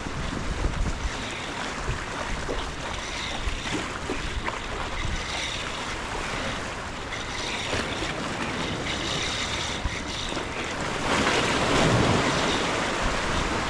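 Ocean surf washing steadily, with wind buffeting the microphone. A louder wave surges in about eleven seconds in.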